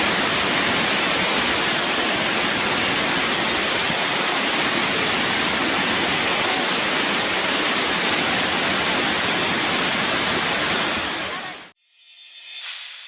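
Waterfall rushing, a loud steady roar of falling water that cuts off abruptly near the end. It is followed by a short, fainter swelling sound with faint tones that fades away.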